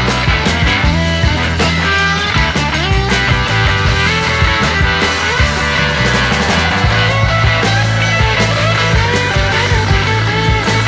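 Background music: rock-style track with guitar, steady bass and a regular beat.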